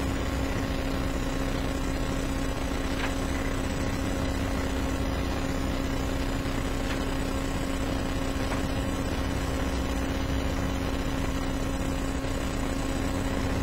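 Steady electrical hum and hiss of a courtroom recording system, with no speech and only a few faint ticks.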